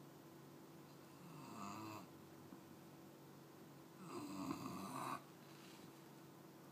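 English Bulldog puppy snoring: a softer snore about a second and a half in, then a louder one about four seconds in, each lasting about a second.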